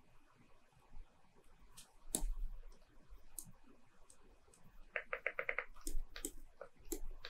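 Faint clicking of computer input devices: a few scattered clicks, a louder one about two seconds in, then a quick run of about eight clicks about five seconds in.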